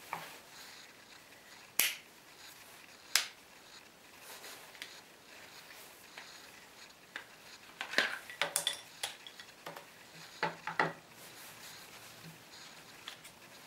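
Scattered knocks and clinks of an antique wooden plough plane being handled and taken apart on a workbench, its wooden stems, wedge and iron knocking together and set down on the bench. A few sharp single clicks in the first seconds, then a quick cluster of knocks past the middle.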